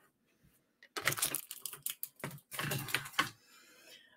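Two bursts of rapid clicking and clattering, the first about a second in and the second about two and a half seconds in, with near silence around them.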